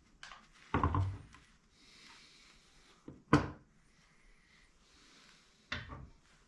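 Three separate clunks and knocks of tools and parts being handled during a motorcycle suspension job: one about a second in, a sharper, louder one about halfway through, and a third near the end, with faint rustling between them.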